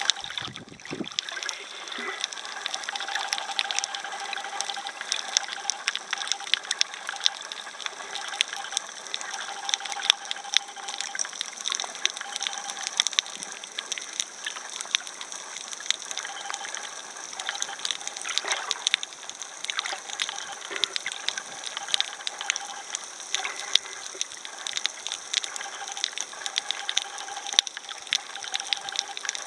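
Underwater ambience heard through a camera held below the surface: a steady hiss with dense, irregular crackling clicks, and a low bump about half a second in.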